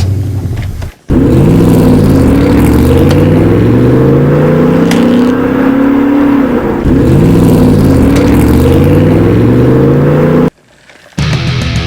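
Electronic engine-revving sound effect from a toy vehicle, loud, with its pitch rising and falling. The same revving pattern plays twice and cuts off suddenly.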